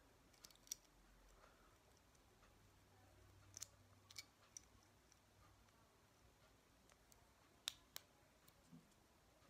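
Near silence broken by a few faint, sharp plastic clicks as Beyblade parts are handled and fitted together, the two sharpest close together about three quarters of the way through.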